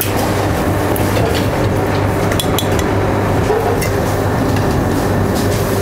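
A steady mechanical hum runs throughout, with a few light clicks of metal tweezers touching a porcelain plate as small pieces of food are set down, the clearest about halfway through.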